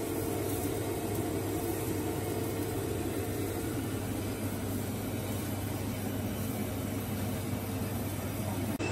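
High-pressure gas wok burner running full under a heating wok: a steady rushing noise with a faint hum beneath it.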